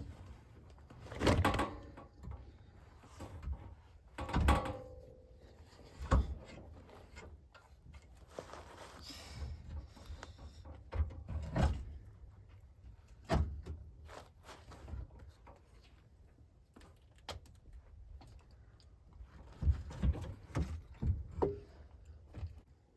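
Scattered thunks and knocks of parts and tools being handled and set down during work on a car's transmission, about a dozen separate hits with quieter shuffling between. The loudest come about a second in and at about four and a half seconds, with a cluster near the end.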